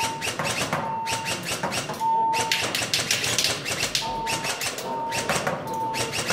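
Airsoft gun firing in rapid strings of sharp clicks, several shots a second, at an electronic target board, which gives a short electronic beep about once a second.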